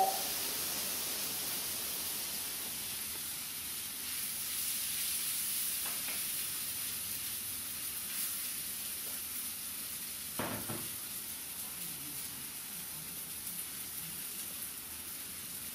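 Food sizzling as it is stir-fried in a hot stainless steel wok, a wooden spatula stirring through it, with a brief knock about ten seconds in.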